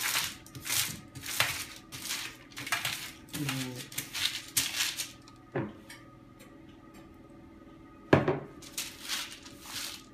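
Parchment paper in a metal baking tray being rubbed with an oiled pad: a run of rustling wiping strokes, one to two a second. It stops for a couple of seconds, then comes a sharp knock and the wiping starts again.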